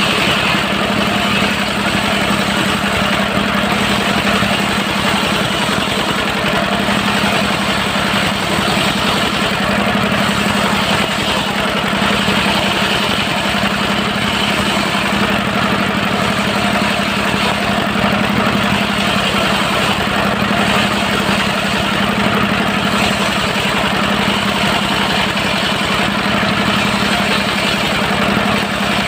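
Stationary diesel engine driving a circular sawmill, running steadily at an even speed with a constant low hum.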